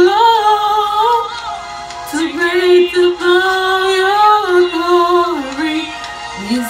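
A solo voice singing a slow gospel song, holding long notes that slide between pitches, with a short break for breath about two seconds in.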